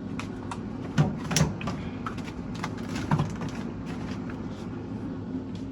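Groceries being put away: a few knocks and clatters of packages and containers being set down and moved, with smaller clicks between, over a low steady hum.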